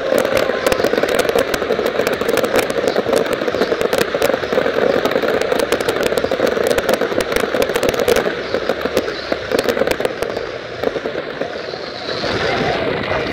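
Aerial fireworks bursting in a dense, rapid crackling and popping barrage of crackling stars, thinning out over the last few seconds.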